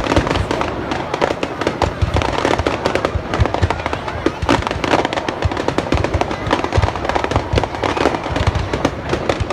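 Dense barrage of fireworks: many overlapping sharp bangs and crackles over deep booms, with no break.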